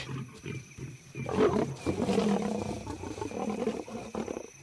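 Lions growling and roaring in a fight, a louder call about a second and a half in, then a run of rough growls that stops just before the end.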